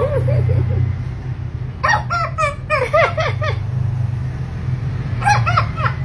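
African grey parrot calling in quick runs of short notes that each rise and fall, in four bursts, over a steady low hum.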